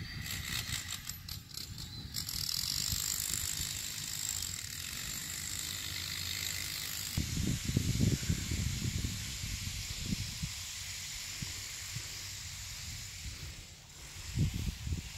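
Wind gusting on a phone microphone outdoors, an irregular low rumble that swells about halfway through and again near the end, over a steady hiss that is strongest in the first half.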